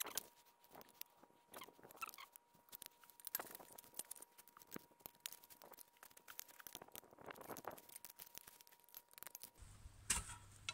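Faint, irregular clicks and scrapes of iron bars levering against the rusted jaws of a blacksmith's leg vice as they are pried apart.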